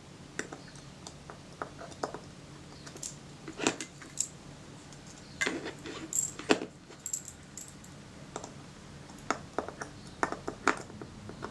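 Small metal clicks and taps as the Kodak Retina IIIS rangefinder assembly is handled with small tools, its bracket being worked free from under a shoulder screw. The ticks come at an irregular pace, with a cluster of louder knocks around the middle.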